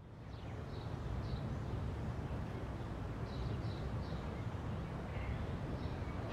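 Birds chirping several times over a steady low rumble, fading up from silence at the start.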